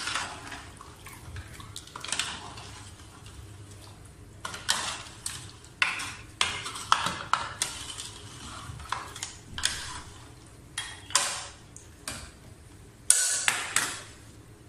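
Steel ladle stirring goat trotters in water in a large aluminium pot, clinking and scraping against the pot's sides and bottom in short, irregular knocks, with a louder knock near the end.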